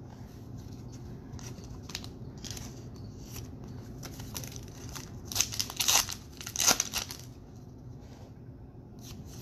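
Baseball trading cards being handled and flipped through: soft slides and flicks, with louder crinkly rustling about five to seven seconds in.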